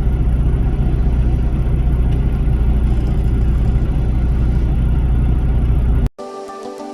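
Truck engine idling with a steady low rumble. It cuts off abruptly about six seconds in and music begins.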